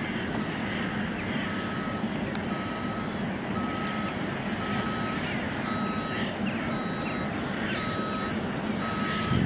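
Steady low rumble of an Airbus A330-200's engines at low power as it taxis, with a reversing-alarm beep sounding about once a second throughout. A short low thump comes right at the end.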